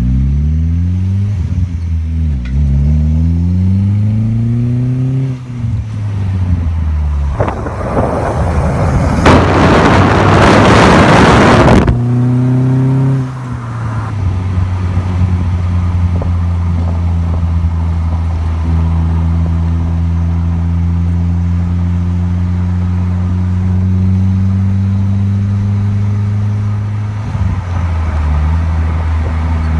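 Open-cockpit custom car's engine accelerating, its pitch climbing and dropping back at each upshift, then settling to a steady cruise. Strong wind rushes over the microphone for about four seconds in the middle, the loudest part.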